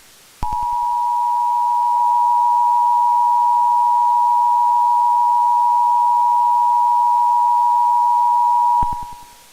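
Emergency Alert System two-tone attention signal: two steady tones sounding together, loud, starting with a click under a second in and held for about eight seconds before stopping near the end.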